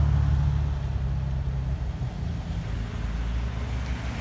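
Engines of parade vehicles driving slowly past close by: a low, steady rumble that eases slightly after about a second.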